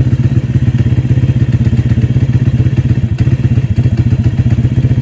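Pit bike's small horizontal single-cylinder four-stroke engine running at a steady speed, a fast even stream of exhaust pulses with no revving.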